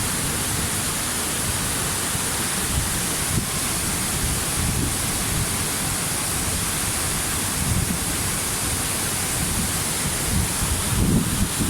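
Waterfall: a steady rush of falling water, with a few low, uneven buffets near the end.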